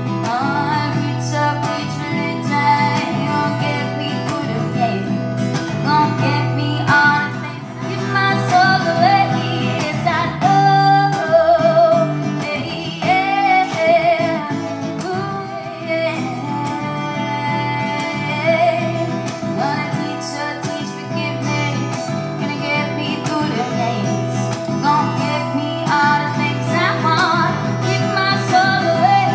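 Acoustic guitar strummed steadily, accompanying a solo voice singing a song.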